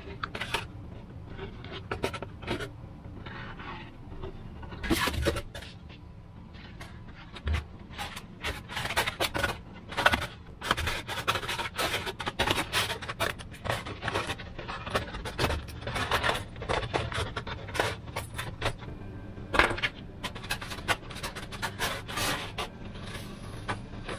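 Depron foam parts being handled, rubbed and pressed together on a wooden worktable: irregular scraping and rubbing with many small clicks and knocks.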